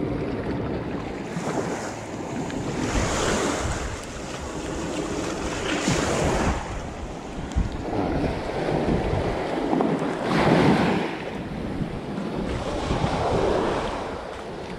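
Small waves breaking and washing up over rocks and sand, swelling every few seconds, with wind buffeting the microphone.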